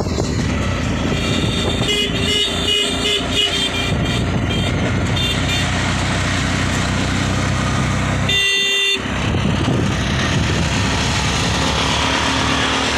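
Auto-rickshaw engine running steadily, with a short horn honk about eight and a half seconds in.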